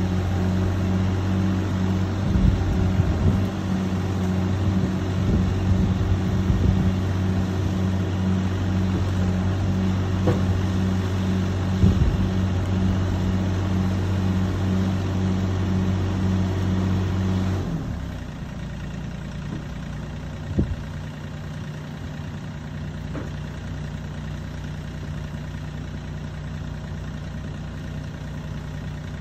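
Mini excavator's diesel engine running steadily with a regular pulsing throb, with a few knocks. About two-thirds of the way through it drops away suddenly, leaving a quieter steady engine hum.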